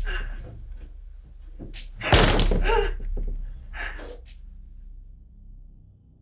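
A door slamming shut with a heavy thud about two seconds in, with smaller knocks just before and after.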